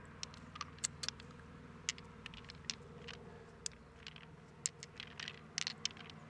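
Small sharp clicks and light scrapes, irregular and spread throughout, as purple pearls are picked out of a giant mussel's flesh and click against each other and the shell in a palm, over a faint steady hum.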